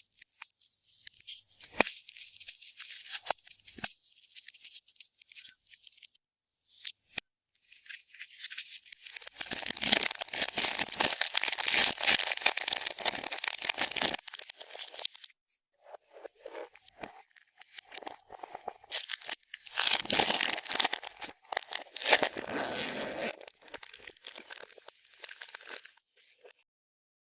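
Hands squishing and stretching slime: dense sticky crackling and clicking, loudest in two longer spells about 9 and 20 seconds in, with sparser clicks between.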